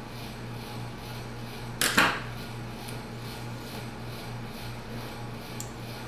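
A small metal screwdriver knocks and scrapes briefly against the tablet's frame and board about two seconds in, over a steady low hum. A faint tick follows near the end.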